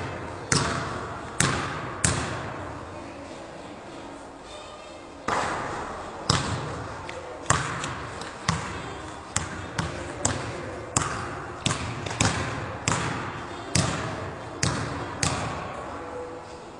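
A basketball is dribbled on a gym floor, and each bounce echoes through the big hall. A few bounces come in the first couple of seconds, then a pause of about three seconds, then steady dribbling at about one and a half bounces a second.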